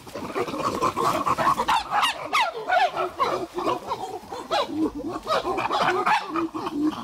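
A group of chimpanzees calling together, many loud overlapping calls rising and falling in pitch.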